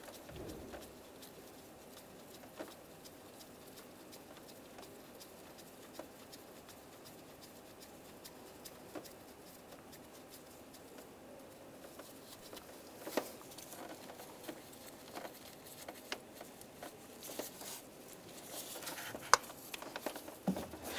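Faint light clicks and scrapes of gloved hands threading the mounting bolts by hand into a vacuum pump on a Volkswagen 1.9 TDI engine, with rustling and one sharp click a couple of seconds before the end.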